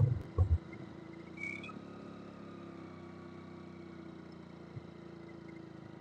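Motorcycle engine running steadily while riding at an even speed, a low constant hum. A few low thumps in the first half-second.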